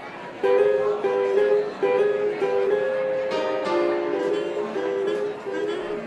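Archtop guitar played alone, starting about half a second in with a swing-style passage of moving two-note harmonies.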